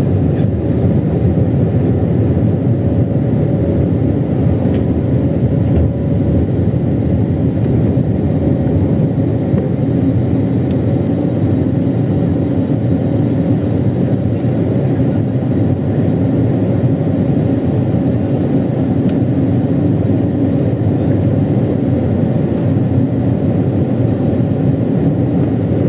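Steady, low cabin noise inside a jet airliner in flight: the engines running and the airflow past the fuselage, heard through the cabin shortly after takeoff as the plane climbs over the city.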